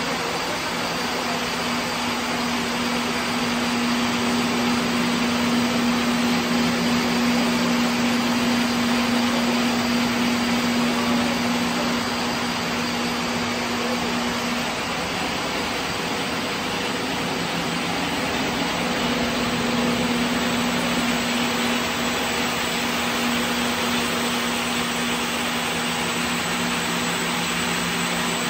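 Textile mill floor of running crepe two-for-one (TFO) twisting machines, their high-speed spindles whirring: a steady, dense hiss over a low hum. The hum fades out for a few seconds midway and then returns.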